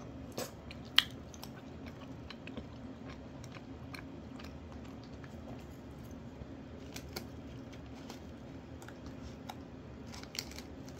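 Scattered light clicks and crunches of eating over a low steady hum, with wooden chopsticks clicking against a plastic takeout tray. There is one sharp click about a second in and a few more near the end as the chopsticks pick up food.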